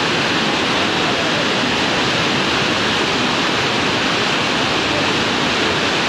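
Whitewater of a fast mountain river rushing over boulders: a loud, steady, unbroken rush.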